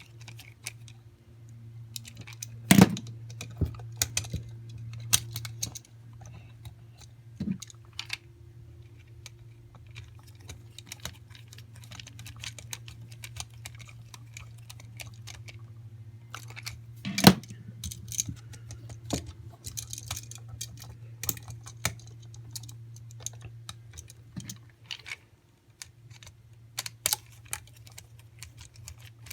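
Small clicks, taps and scrapes of a screwdriver and wires being worked onto the terminal screws of a new electrical outlet, irregular throughout, with two louder sharp knocks about 3 and 17 seconds in. A faint steady low hum runs underneath.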